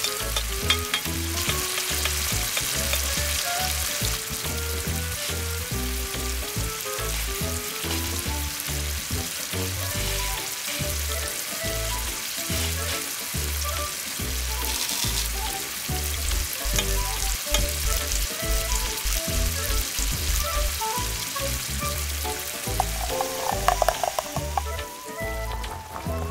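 Garlic, ginger and spices frying in oil in a miniature steel wok: a steady sizzle, with a tiny spoon stirring and scraping the pan.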